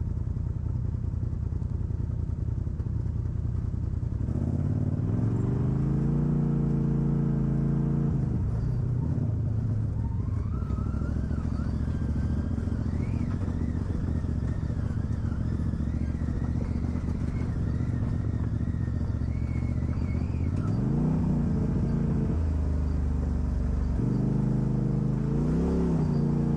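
Off-road vehicle engine running and revving, its pitch climbing, holding and dropping several times, with a thin wavering higher whine partway through.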